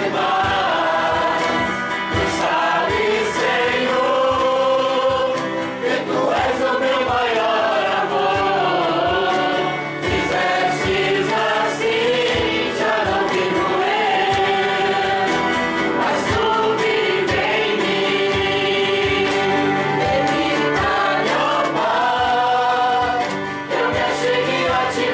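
Voices singing a worship song together, accompanied by a strummed acoustic guitar.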